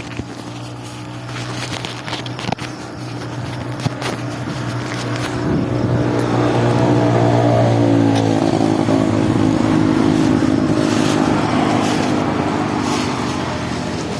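A motor vehicle engine running close by, growing louder through the first half and shifting in pitch around the middle as it draws nearest.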